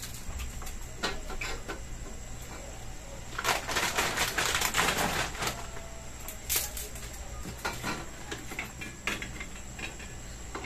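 Pansit noodles being stirred and tossed in a pan, the cooking utensil clicking and scraping against the pan at irregular moments. A louder, denser stretch of noise runs from about three and a half to five and a half seconds in.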